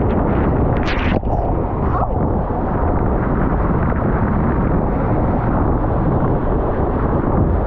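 Loud, steady rush of water and air buffeting the microphone of a waterproof camera riding down an enclosed water slide, with a few brief scrapes about a second in.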